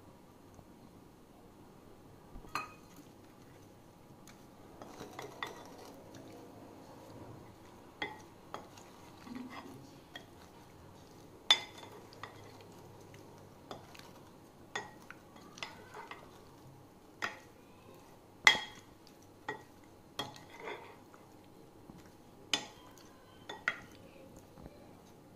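A wooden spoon mixing spice-and-tamarind-coated taro slices in a glass bowl: soft wet stirring with irregular sharp knocks of the spoon against the glass, the loudest about twelve and eighteen seconds in.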